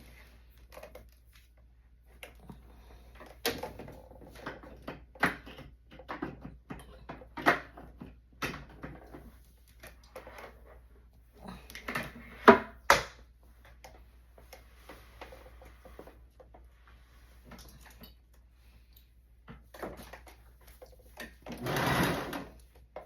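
A thrifted domestic sewing machine being handled: irregular clicks and knocks, with a brief louder noisy burst near the end.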